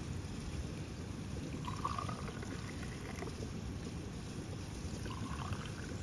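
Tea poured from a cast-iron teapot into small glass tea glasses, a faint trickle in two short pours, over a steady low rumble.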